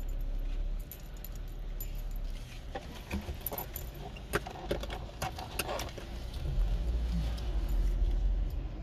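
Light metallic jingling in short scattered bursts, mostly in the middle, over the steady low rumble of a car cabin on the move; the rumble grows louder near the end.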